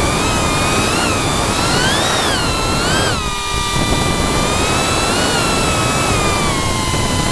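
FPV quadcopter's brushless motors and propellers whining, the pitch swinging up and down about once a second as the throttle changes, over rushing wind noise. About three seconds in, the noise briefly drops as the throttle is cut, then the whine picks up again.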